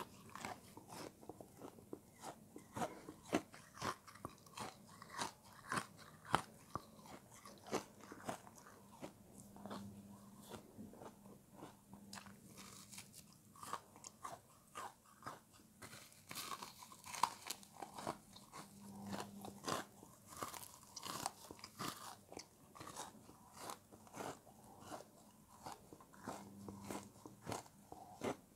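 Close-up chewing of something frozen and icy: a continuous, irregular run of sharp, crisp crunches, several a second.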